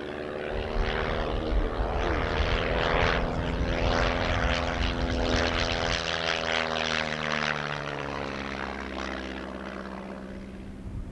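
Arrow Active II single-seat biplane's piston engine and propeller during an aerobatic display. The engine note swings up and down in pitch as the aircraft manoeuvres, loudest midway and fading toward the end.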